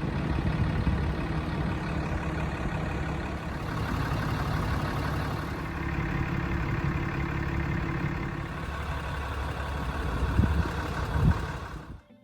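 A vehicle engine running steadily with a low hum, with two short louder knocks near the end before the sound cuts off suddenly.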